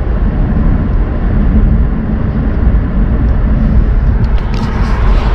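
Steady wind rush and road noise in the open cabin of a convertible driving with its roof down, loud and low, buffeting the microphone.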